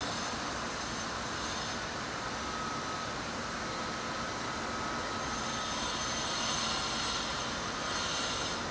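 Class 201 diesel-electric locomotive's EMD 710 two-stroke V12 engine running as the locomotive approaches light engine, with a thin steady whine over the engine noise. It grows a little louder about two-thirds of the way in.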